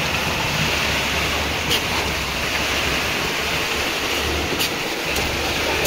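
Steady mechanical noise of a concrete pump pushing concrete through its delivery pipe and hose during a slab pour, with a low rumble that swells and eases. A few sharp ticks cut through it.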